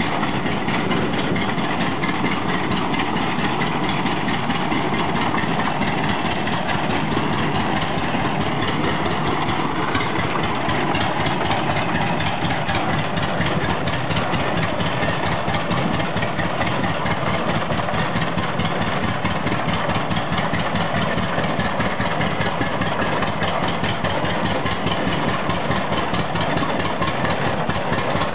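Antique Happy Farmer three-wheeled tractor's engine running steadily as the tractor drives, a rapid, even beat of firing strokes.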